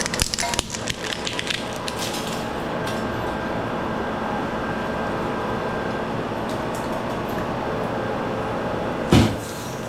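Scrap parts clattering and cracking as they are handled and broken for about two seconds, then a steady machine hum, with one short loud knock near the end.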